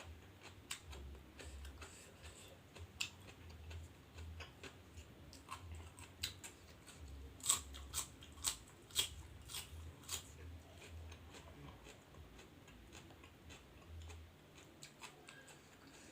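A person chewing crunchy food close to the microphone: a string of sharp, crisp crunching clicks, thickest around the middle, over a soft steady chewing rhythm.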